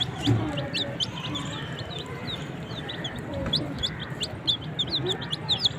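Desi chicken chicks peeping: many short, high chirps from several chicks overlapping, getting denser toward the end.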